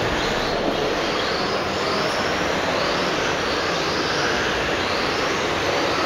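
Several electric radio-controlled touring cars racing on an indoor carpet track, their motors giving high whines that rise in pitch again and again as the cars accelerate, over a steady hiss of tyres and running gear.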